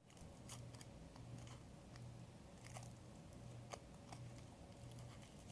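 Near silence: room tone with faint scattered clicks and a low hum that throbs a little faster than once a second.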